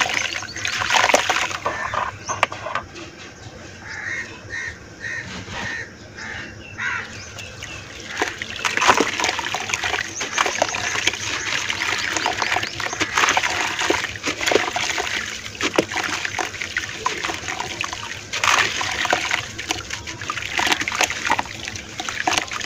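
Hands squeezing and crumbling lumps of gritty red dirt in a bucket of muddy water: splashing and sloshing mixed with dense gritty crackling as the wet clumps break apart. It is quieter for a few seconds early on, then busier and louder again from about eight seconds in.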